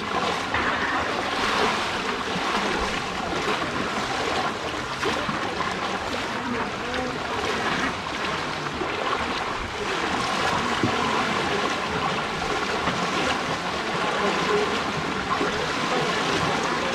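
Steady rushing of water on a flooded road.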